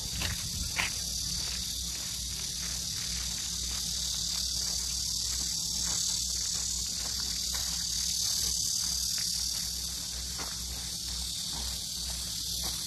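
A steady, high-pitched chorus of insects buzzing that swells a little in the middle, with two faint clicks in the first second.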